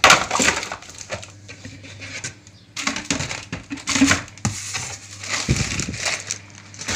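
Plastic packaging crinkling and small items knocking against a plastic bucket and cardboard box as a hand rummages through them, in irregular bursts.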